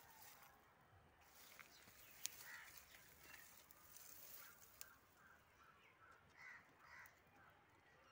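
Near silence with faint short bird calls now and then, and one sharp click about two seconds in.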